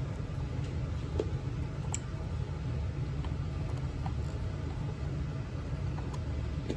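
A few faint, scattered clicks of a screwdriver backing out a smoke-alarm mounting-plate screw, over a steady low hum.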